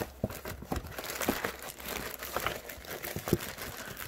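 A cardboard box being handled open and a plastic-wrapped pack of disposable face masks pulled out of it, the plastic crinkling and rustling in irregular crackles.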